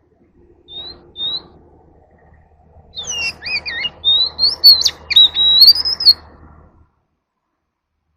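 Oriental magpie-robin singing: two short rising whistles about a second in, then a loud run of varied whistled phrases and quick warbles lasting about three seconds.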